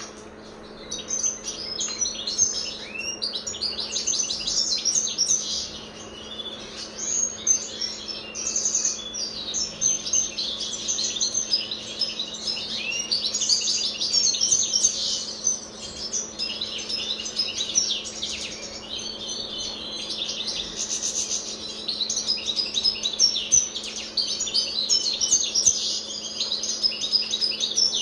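Caged European goldfinch singing: a long, fast twittering song of high chirps and trills, broken by short pauses.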